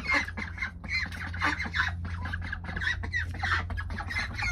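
A group of ducks calling: a quick, overlapping run of short, high calls, over a steady low hum.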